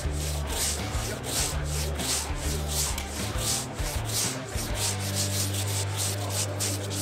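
Silky Japanese hand saw cutting through a log with bark, in fast rhythmic rasping strokes at about two a second.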